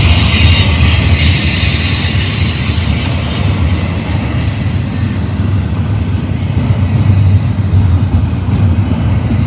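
BNSF double-stack intermodal well cars rolling past close by: a steady low rumble of steel wheels on rail, with a high hiss that fades after the first couple of seconds.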